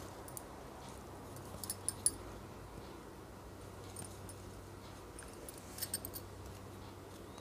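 Faint, small clicks of a crochet hook working wool yarn into stitches: one near the start, a cluster about two seconds in and another about six seconds in, over a low steady hum.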